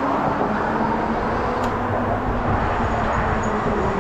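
ANIIOKI A8 Pro Max electric bike riding along: steady tyre and wind noise with a faint, even hum from the electric motor.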